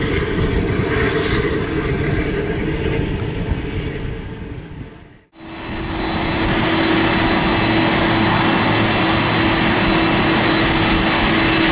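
Boeing 747-400's four General Electric CF6-80C2 turbofans running at taxi power: a steady jet whine over a low rumble. It fades out about five seconds in and comes back a little louder, with a clear high whistle and a steady low hum.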